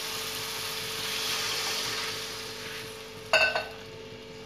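Tomato masala sizzling in a kadai as water is poured in. The sizzle swells, then dies down over the next couple of seconds. About three seconds in there is one sharp metallic clink, typical of a spatula striking the pan.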